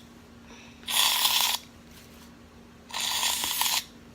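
Aerosol can of shaving cream spraying foam in two short hissing spurts, about a second in and again near three seconds in.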